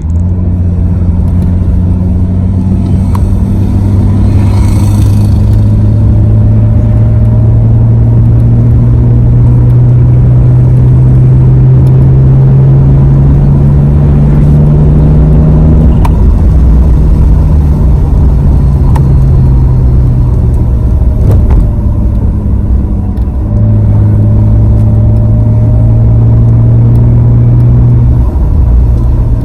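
Supercharged V6 of a 2017 Dodge Charger running loud and steady. Its low drone climbs slowly in pitch for about sixteen seconds, then drops. It rises again and falls off near the end.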